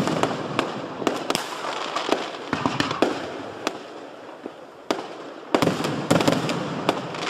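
Aerial firework shells bursting one after another with crackling. The bangs thin out around the middle, then a new volley of bursts starts about five and a half seconds in.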